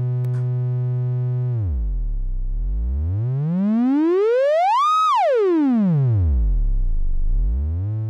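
Mutable Instruments Tides v2 Eurorack module running as an audio-rate oscillator, its raw tone swept by hand on the frequency knob. A steady low hum drops to a deep buzz, glides up to a high whine about five seconds in, falls back to the deep buzz, and climbs again near the end.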